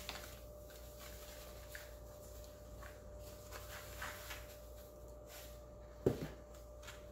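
Salt being poured and spread over pieces of pork loin in a plastic container: faint, intermittent gritty rustling and scraping, with one sharper knock about six seconds in.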